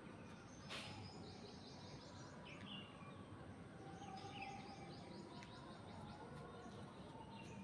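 Faint chirping of small birds, many short downward chirps repeating over quiet outdoor background noise, with a single soft click about a second in.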